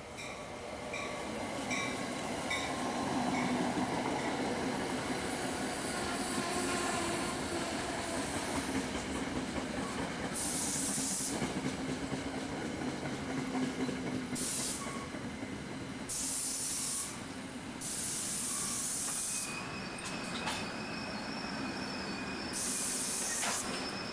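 Train running on the rails, with a run of regular clicks at first. From about ten seconds in come five short, sudden bursts of hissing air, each about a second long.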